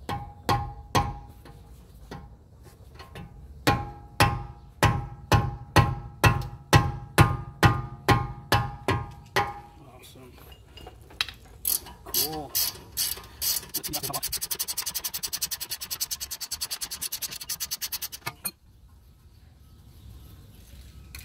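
About seventeen sharp metal strikes, about two a second, each with a ringing tone, as a wrench is worked on the rusted 18 mm tie rod end nut. Then a few scattered clicks and, for about four seconds, a fast, even clicking of a ratchet spinning the nut off.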